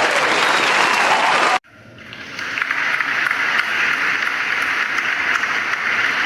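Crowd applause that cuts off abruptly about one and a half seconds in, followed by a second stretch of applause that fades in over about a second and then holds steady.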